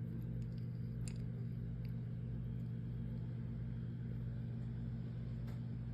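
A steady low hum with a couple of faint clicks, about a second in and near the end.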